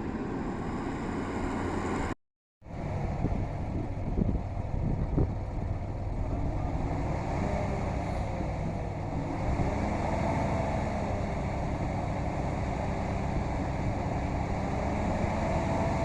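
An engine running steadily, with a brief cut to silence about two seconds in and a few knocks soon after; a whine rises and falls twice in the second half.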